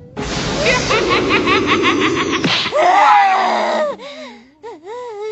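Cartoon character's loud, long laugh in quick repeated bursts for about two and a half seconds, then a voice crying out, wavering up and down in pitch.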